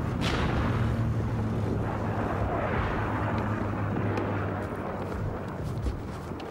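A shell explosion goes off at the very start: a sharp blast followed by a long rumble that slowly dies away, over a steady low hum.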